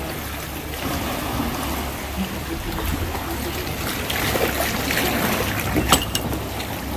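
Kayak paddles dipping and splashing in sea water, with water sloshing against the hull, and a sharp knock about six seconds in.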